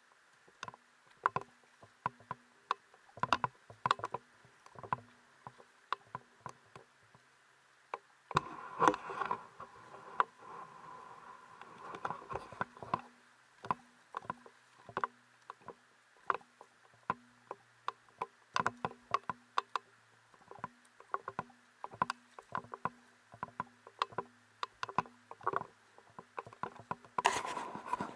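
Footsteps on the loose cobbles of a shallow stony stream bed: irregular sharp clacks of stones knocking together underfoot, one or two a second. There is a brief stretch of splashing about eight seconds in and another near the end.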